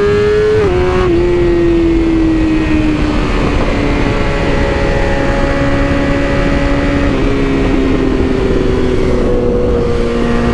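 BMW S1000RR inline-four engine running at highway speed under steady wind noise. The engine note climbs a little, then drops suddenly on a gear change just under a second in. It sinks slowly as the bike eases off, and steps back up about seven seconds in.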